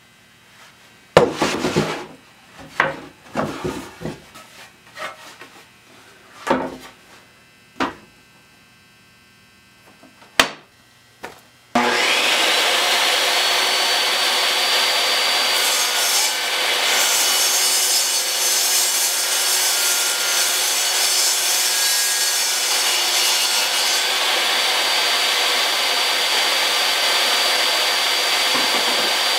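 A series of wooden knocks and clunks as boards are handled and set down at the saw. About twelve seconds in, a portable table saw starts with a rising whine and runs steadily. A few seconds later it rips a board along the fence for about eight seconds, then spins free again.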